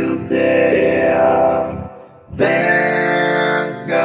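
Music with a singing voice over dense sustained chords. It breaks off abruptly about two seconds in and starts again half a second later.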